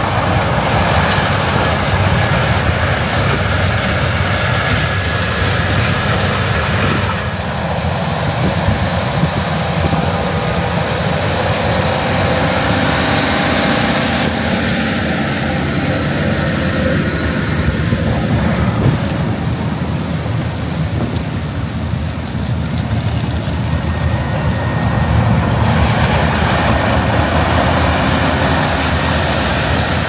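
A combine harvester and a tractor-drawn grain cart working side by side in a corn field: a loud, steady mix of diesel engine and machinery noise, heard close.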